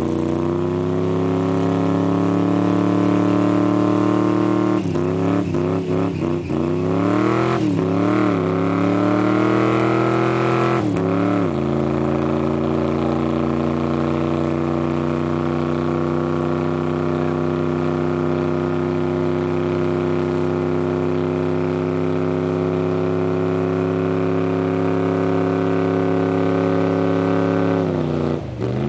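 Hot-rod pickup's engine held at high revs while the rear tyres spin in a smoky burnout. The revs climb over the first few seconds and rise and fall several times about five to eleven seconds in. They are then held steady and drop off near the end.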